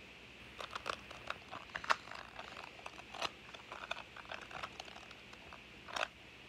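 Plastic Rubik's cube being turned by hand: a run of quick, irregular clicks as its layers snap round, with a louder clack about six seconds in.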